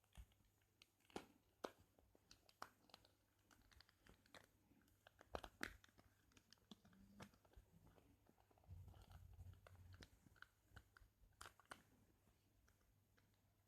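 Faint, scattered clicks and taps of a mobile phone being handled while it is opened to take out its battery.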